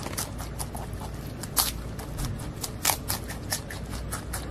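Giant panda eating bamboo shoots: a quick, irregular run of crisp crunches and snaps as it bites and chews, with two louder cracks about a second and a half in and near three seconds, over a low steady hum.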